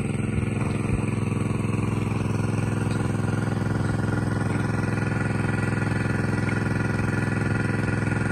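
Small engine driving a water pump, running steadily at a constant speed.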